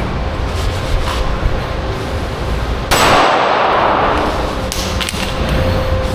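Airsoft pistol shots with BBs striking steel target plates: a few sharp clangs, the loudest about three seconds in, each leaving the plate ringing.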